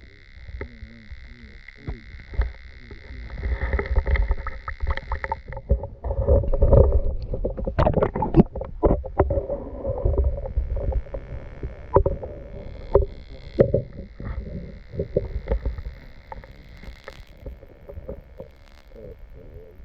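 Water sloshing and gurgling in an ice-fishing hole, with irregular knocks and rumbling handling noise, heaviest in the middle. A faint steady high whine sits underneath; it drops out about five seconds in and returns near thirteen seconds.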